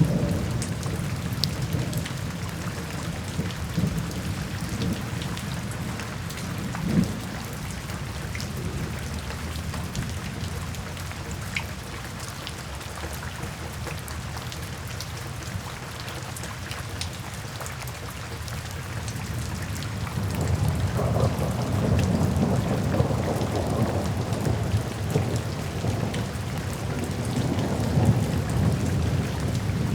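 Steady rain falling, with scattered drops ticking, over low rumbling thunder. About two-thirds of the way through, the rumble swells into a louder, longer roll of thunder.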